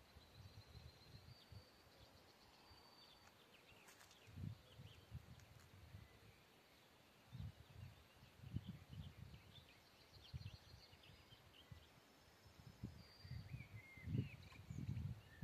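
Quiet outdoor ambience: wind buffeting the microphone in irregular low gusts, stronger near the end, with faint birdsong chirps and trills above it.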